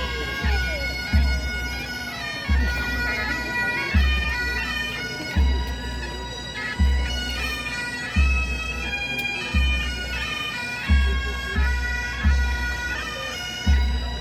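Pipe band playing: bagpipes sound a melody over their steady drones, with a bass drum beating about once every second and a half.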